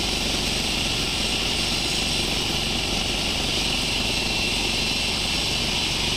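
Sawmill machinery running steadily, a constant drone with a high hiss over a low rumble.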